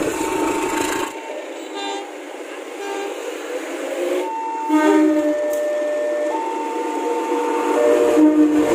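Diesel locomotive air horns sounding a string of held blasts. Each blast is a steady multi-tone chord, and the sound switches abruptly to a different horn chord every one to three seconds.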